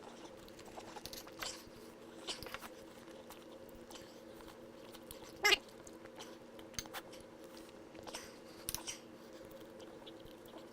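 A person chewing steak with the mouth close to the microphone, with scattered short clicks and one louder, sharper click about halfway, over a low steady hum.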